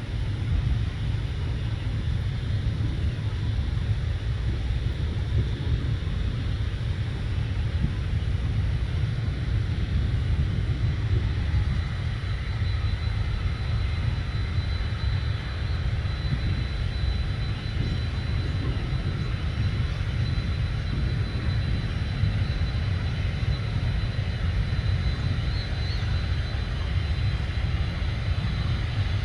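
A Boeing 737-800 airliner's CFM56 jet engines running, with a steady deep rumble and a thin high whine that comes in partway through.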